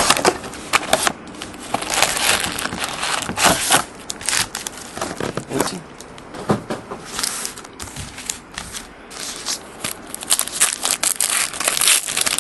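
Plastic wrapping and foil trading-card pack wrappers crinkling and tearing in irregular rustles as a sealed card box is opened and its packs handled, with a pack being torn open near the end.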